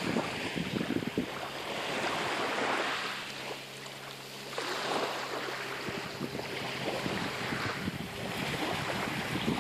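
Sea waves washing in repeated surges, with wind buffeting the microphone.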